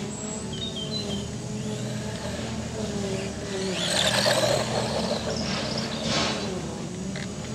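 Brushed electric motor of an FTX Tracer RC buggy whining, its pitch rising and falling with the throttle. About four seconds in the buggy rushes close past over loose dirt, the loudest moment, with a shorter rush about six seconds in. Faint bird chirps near the start.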